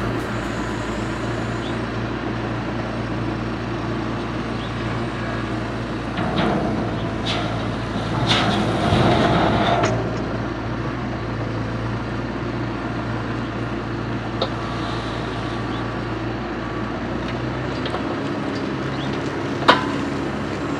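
Diesel engine of a JCB loader running steadily, growing louder for a few seconds in the middle while it lowers a round straw bale on its bale spear, with a few sharp knocks.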